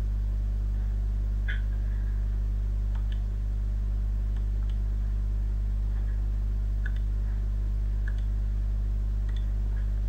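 Steady low electrical hum on the recording, with a few faint, short clicks from a computer mouse scattered through it.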